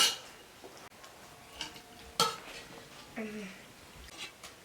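Metal utensil knocking and clinking against a cooking pot during stirring: a few sharp clinks, the loudest at the start and about two seconds in.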